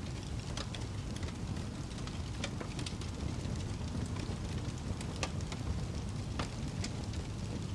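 Wood fire burning in a fireplace: a steady low rumble of flames with scattered sharp crackles and pops, about a dozen of them.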